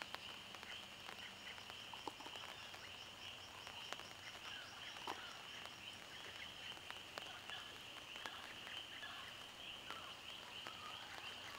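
Faint chorus of frogs and insects: a steady, finely pulsing high trill throughout, with scattered short chirps over it.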